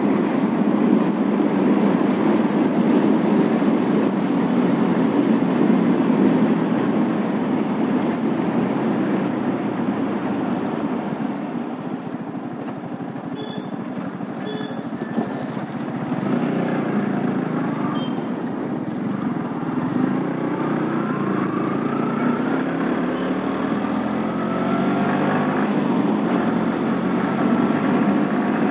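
Motorcycle on the move: the engine running under a steady rush of road and wind noise, its note climbing several times in the last third as it speeds up.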